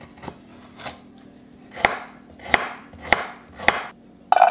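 A chef's knife chops a carrot into small cubes on a wooden cutting board: two faint taps, then four firm chops about half a second apart. Near the end, carrot cubes drop into a plastic measuring cup with a short clatter.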